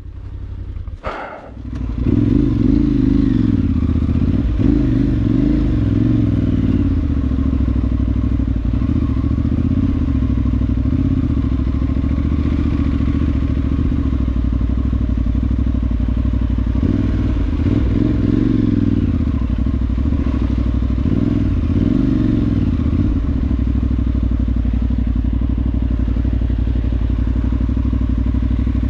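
Parallel-twin adventure motorcycle engine running steadily under riding load, picking up about two seconds in, with some clatter and knocks over rough off-road ground.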